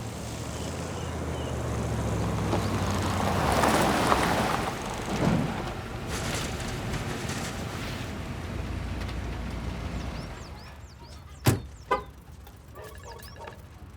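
A vehicle passing, its road noise swelling to a peak and fading over a steady low rumble, followed by two sharp knocks about half a second apart.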